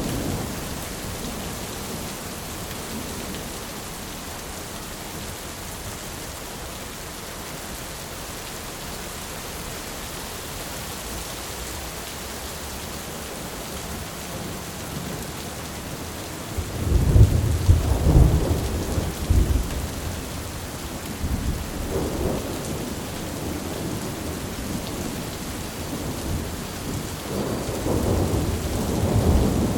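Heavy rain falling steadily, with thunder breaking into a loud rolling rumble about halfway through, rumbling again a few seconds later and building once more near the end.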